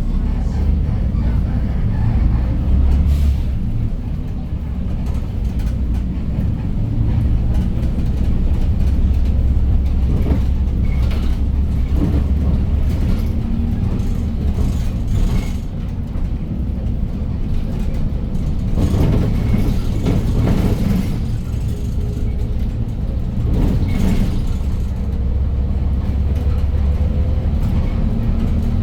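2015 Hyundai New Super Aerocity city bus under way: its CNG engine and the road give a steady low rumble that swells and eases a little, with scattered short clicks and rattles.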